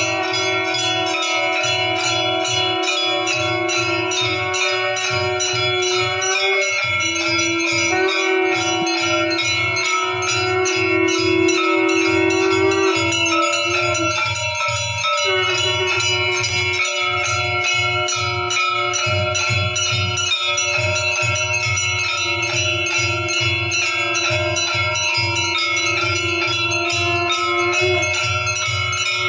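Temple bells ringing continuously and rapidly for an aarti, over a fast steady beat and a long held tone that shifts pitch now and then.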